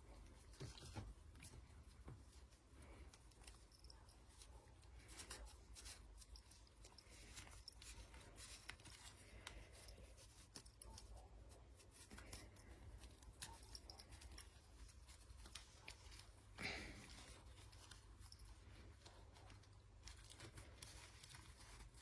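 Faint rustling and small scattered clicks of hands pulling fabric socks onto a small ball-jointed doll's legs and handling its jointed limbs, with one louder rub about seventeen seconds in.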